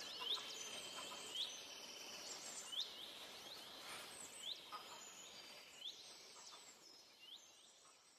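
Forest ambience: birds giving short rising chirps about once a second over a steady high hiss, fading out near the end.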